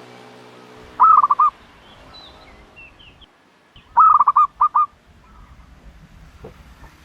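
A dove calling in quick runs of about five short notes: one about a second in, another about three seconds later followed by two more notes. Faint higher chirps from other birds sound between the runs.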